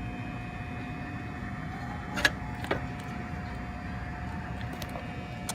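Steady mechanical drone of running HVAC equipment with a faint steady whine, broken by two sharp clicks about half a second apart, a little over two seconds in.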